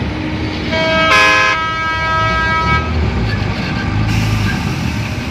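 A heavy mining machine's horn sounds once, starting just under a second in and lasting about two seconds, loudest near its start. Beneath it runs the steady low rumble of the diesel engines of the large hydraulic excavator and dump trucks working nearby.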